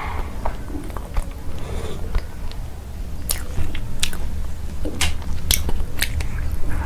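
Close-miked mouth sounds of someone chewing soft cake. In the second half a paper cupcake liner crackles as it is peeled off, and a bite follows, all over a steady low hum.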